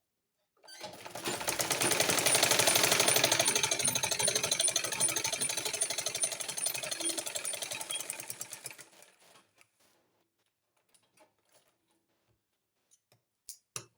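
Black-head domestic sewing machine stitching through two layers of cloth with a fast, even clatter that runs for about eight seconds, then slows and dies away as it stops. The presser-foot pressure is set too high, so the fabric is being stretched as it feeds.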